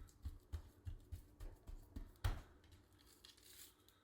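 Hands rubbing salt into raw chuck eye roasts: a run of soft wet slaps and thuds on the meat, about three a second, with one louder thud a little after two seconds, then quieter rubbing.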